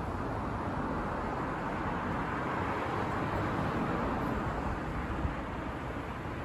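Steady running noise of a suspended monorail car, heard from inside as it travels along the overhead beam: an even rumble and hiss with no distinct tones.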